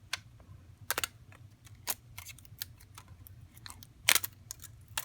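Irregular sharp clicks and crackles of an adhesive sticker being peeled off a phone's back glass, with the loudest cluster about four seconds in.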